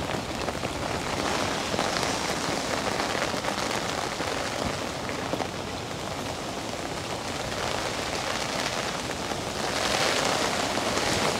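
Steady rain falling, with no break, swelling a little near the end.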